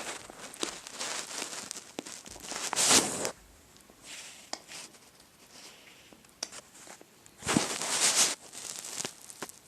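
Crinkling, rustling noise in irregular bursts with a few sharp clicks, loudest about three seconds in and again around eight seconds in; no ringtone melody is heard.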